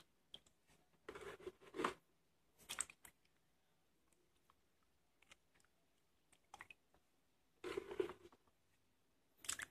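Water sloshing and splashing in a plastic basin in a few short bursts as a hand rubs and scrubs tuber chunks clean, with quiet between.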